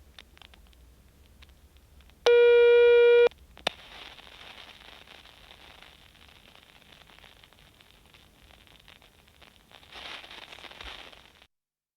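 A telephone line tone sounds once for about a second, as a steady buzzy note with many overtones. Then a click, and the open line hisses, louder near the end, before cutting off suddenly.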